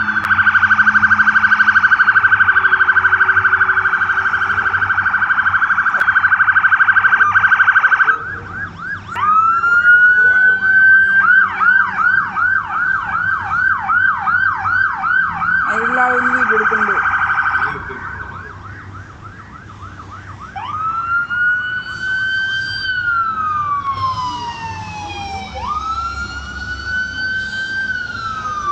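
Police sirens: a very fast warble for the first eight seconds, then a yelp sweeping up and down about twice a second, then, quieter from about 18 seconds in, slow rising-and-falling wails from more than one siren overlapping.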